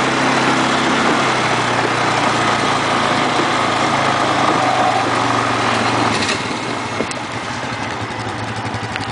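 ATV engine idling steadily; about six seconds in its low hum weakens, there is one click a second later, and the sound cuts off suddenly at the end.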